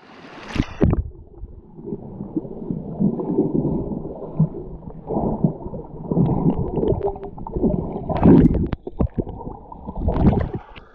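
Muffled water gurgling and sloshing heard through a submerged camera, as hands grapple with a fish underwater, with scattered small knocks and clicks. Louder surges of churning water come about eight and ten seconds in.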